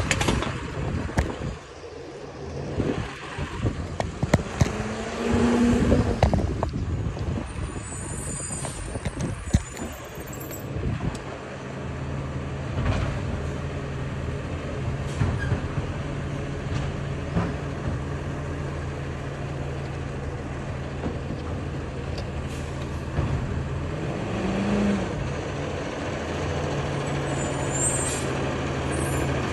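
Automated side-loader garbage truck's diesel engine running, uneven for the first several seconds and then a steady low hum. Brief high-pitched squeals come from the truck near the middle and again near the end.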